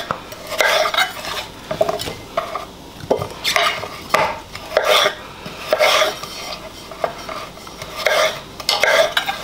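Chef's knife cutting through chocho (chayote) on a wooden cutting board, an uneven run of slicing strokes and knife knocks on the board about once a second.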